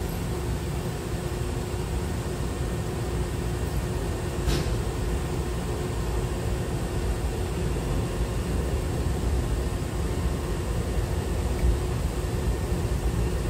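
Steady low hum of a Hankyu 6000-series commuter train standing at the platform with its doors open, with a faint steady tone over it. A short sharp click about four and a half seconds in.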